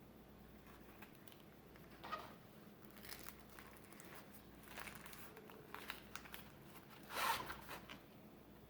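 Intermittent rustling and crinkling as a burrito is folded and rolled up by hand, with the loudest crinkle about seven seconds in.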